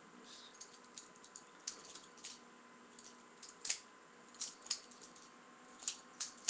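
Irregular metallic clicks and clacks of a butterfly knife's handles being swung open and shut, several sharper clacks near the middle and end.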